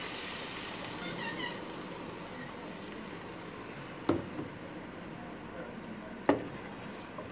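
Hot oil and fried spices sizzling in an aluminium pot as a yogurt and gram-flour mixture is poured in, a steady hiss. Two sharp knocks, about four and six seconds in, are the loudest sounds.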